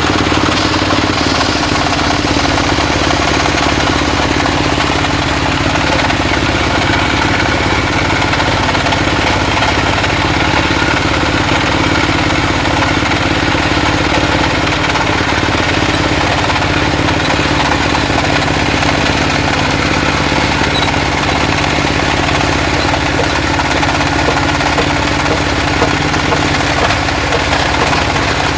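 Circular wood saw running steadily, sawing mahogany into boards, with an even mechanical drone throughout.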